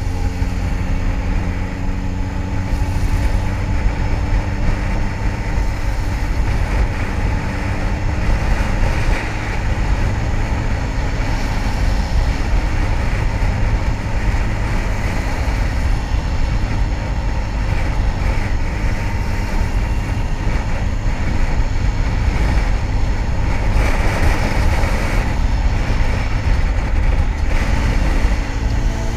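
Kawasaki ZX-10R's inline-four engine running on the move, under heavy wind rush over the microphone. The engine note stands out most clearly at the start and again near the end, where it rises a little.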